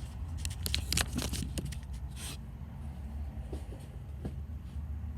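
Handling noise: a quick run of knocks, clicks and scrapes as something is propped up and set in place, thinning to a few light knocks after about two and a half seconds, over a steady low hum.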